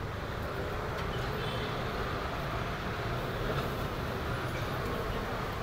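Steady hum of roadside street noise, mostly passing traffic, with no distinct events.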